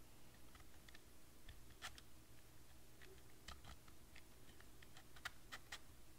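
Faint, scattered wooden clicks and taps as fingers turn the maze disc and shift the small wooden pegs of a laser-cut wooden puzzle box. The sharpest click comes about two seconds in, with a cluster of clicks near the end.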